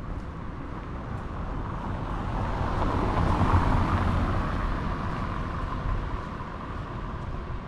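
A road vehicle driving past: its noise builds to a peak about halfway through, then fades away.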